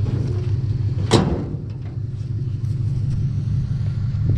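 Pickup truck engine idling with a steady low rumble. About a second in comes a single sharp metallic bang of the tailgate being shut.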